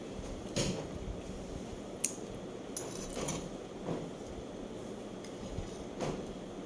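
Eating sounds: a few sharp clicks and clinks, like dishes or utensils, over a steady background hum. There is a short clatter about three seconds in.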